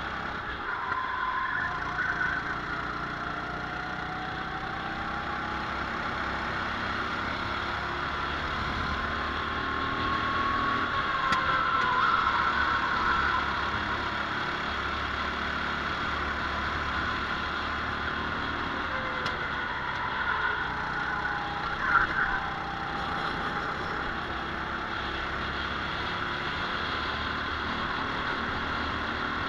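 Racing kart engine heard from on board at race speed, its pitch rising and falling as it speeds up and slows for the corners. A short louder sound about 22 seconds in.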